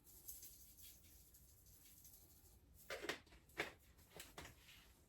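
Near silence: room tone, with a few faint light taps about three to four and a half seconds in.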